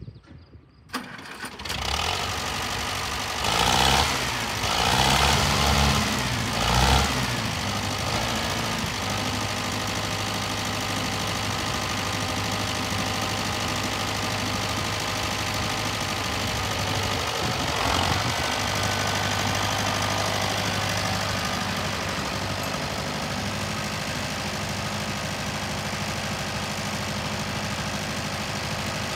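Case 300 tractor's four-cylinder diesel engine running, revved up three times a few seconds in, then settling to a steady low-speed run as the tractor moves slowly.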